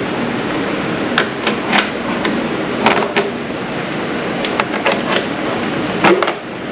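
Hand tools knocking and clinking against metal parts of a car engine in about a dozen irregular, sharp strikes, over a steady background noise.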